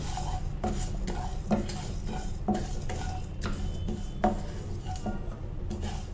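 Wooden spatula stirring and scraping coriander, cumin and fenugreek seeds around a nonstick frying pan as they fry in a little oil, a stroke about once a second, over a steady low hum.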